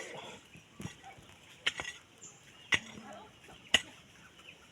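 Four sharp knocks about a second apart, from work in a potato field, with faint voices between them.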